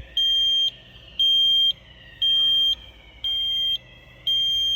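Fire alarm sounder of an addressable fire alarm system going off during a test. It gives a loud, high, steady beep that pulses on and off about once a second, five beeps in all, with a fainter tone gliding up and down beneath it.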